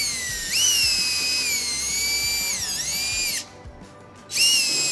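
DeWalt cordless drill with a quarter-inch bit boring down through a hardwood tabletop board: a high motor whine whose pitch sags and recovers as the bit bites. It stops about three and a half seconds in, then runs again briefly near the end.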